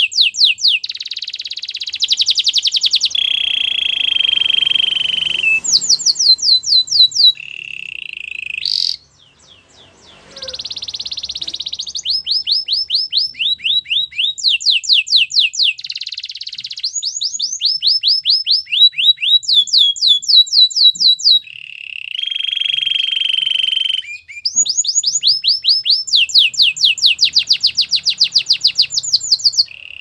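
Domestic canary singing a long, loud song: fast trills of repeated sweeping notes alternating with lower buzzing rolls, with a short pause about nine seconds in.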